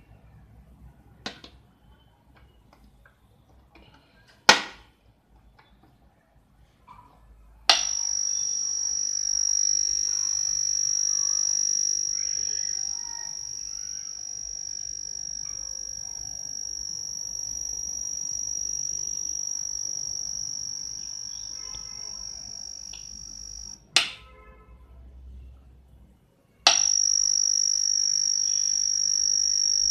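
Ultrasonic pest repeller plugged into a wall socket, giving off a steady high-pitched electronic whine with faint overtones. Two sharp clicks come before it. The whine starts with a click about eight seconds in, cuts off with a click at about twenty-four seconds, and comes back with another click about three seconds later.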